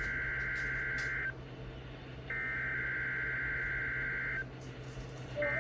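NOAA Weather Radio Emergency Alert System (SAME) header: bursts of shrill, buzzy warbling data tones, each one to two seconds long with about a second's pause between them, the last starting near the end. The bursts mark the start of a Required Weekly Test. A steady low hum from the receiver runs underneath.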